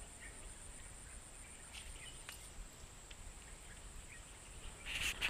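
Steady high-pitched drone of insects over a quiet wetland background, with a few faint ticks and a brief louder hiss near the end.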